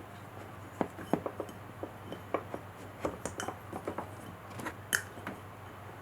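Irregular small clicks and light metallic taps of parts and hand tools being handled during motorcycle brake caliper work, about twenty in all, over a steady low hum.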